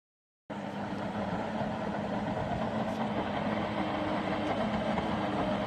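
Boat engine running steadily, cutting in suddenly about half a second in, with a constant low hum that slowly grows a little louder.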